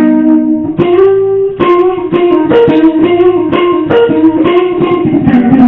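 Guitar being played solo, opening on a held note and then picking a quick run of repeated notes, about four or five a second, with the pitch dropping near the end. Recorded loud through a webcam microphone, with poor sound.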